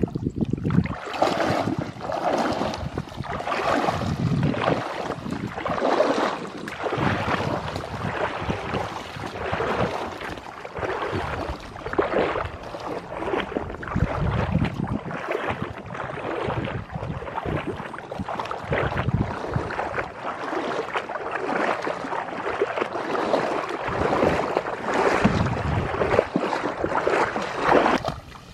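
Shallow muddy water splashing and sloshing around a person's legs as he wades, with tall rushes swishing against him; the splashes come in an uneven run, about one every second or so.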